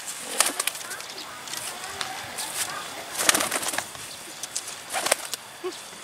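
Racing pigeons flapping their wings in three short bursts of wing claps: near the start, about halfway through, and about a second before the end.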